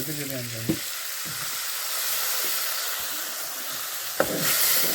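Food sizzling as it fries in a pan, a steady hiss. It swells near the end, just after a single knock about four seconds in. A voice is heard briefly at the start.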